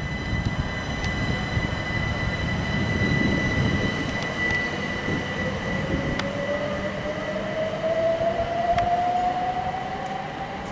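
c2c Class 357 Electrostar electric multiple unit on the move: a low rumble of wheels on rail with a steady high whine and a few sharp clicks. From about halfway through, a second whine climbs steadily in pitch as the traction motors take power and the train accelerates.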